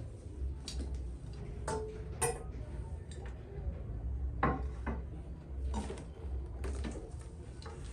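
Irregular light clicks and knocks of small household objects being handled and set down while arranging, about eight in all, the loudest a little after 2 s and about 4.5 s in, over a steady low hum.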